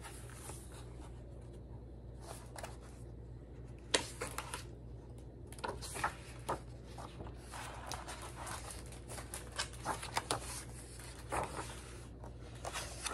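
Pages of a hardcover picture book being turned one after another: soft paper rustles and flicks every second or so, over a faint steady hum.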